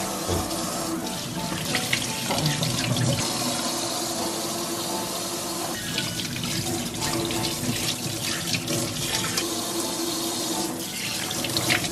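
Kitchen faucet running in spray mode into a stainless steel sink, a steady rush of water as raw chicken breasts are rinsed by hand under it, washing off their marinade. Background music plays underneath.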